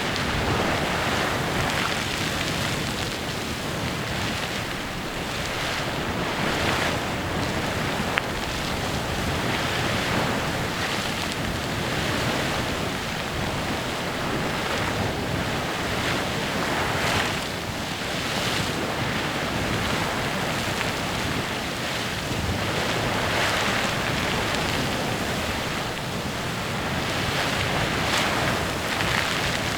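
Clepsydra Geyser erupting: a steady splashing rush of water and steam that swells and ebbs every few seconds.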